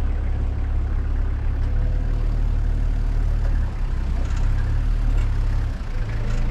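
A 4x4 vehicle driving slowly on a rough dirt track: a steady low drone of engine and drive noise, with no distinct events.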